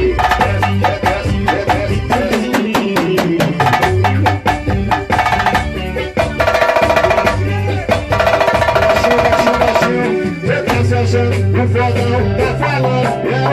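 A band playing an instrumental passage: a steady beat of drums and percussion with bass, and long held chords from about 6 to 10 seconds in.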